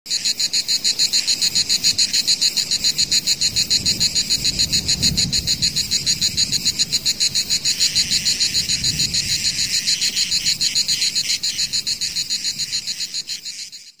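Night chorus of calling frogs and insects: a loud, high trilling that pulses rapidly and steadily, with a low rumble underneath, fading out near the end.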